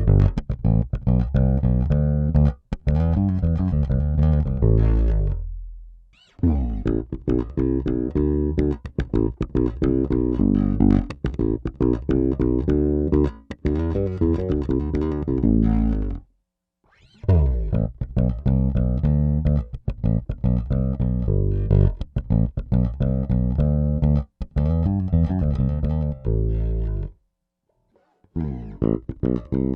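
Peavey T-40 electric bass played fingerstyle: phrases of plucked notes, with three short pauses, about six, sixteen and twenty-seven seconds in.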